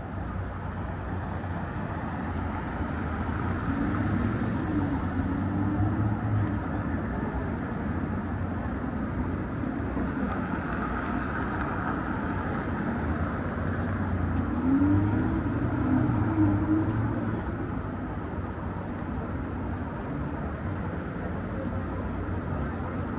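Downtown street traffic: a steady hum of city noise with vehicles passing close twice, their engine sound swelling and falling away.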